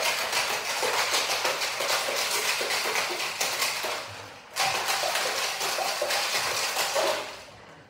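Ice cubes rattling fast inside a metal cocktail shaker being shaken hard. The rattle breaks off briefly about four seconds in, starts again, and stops about a second before the end.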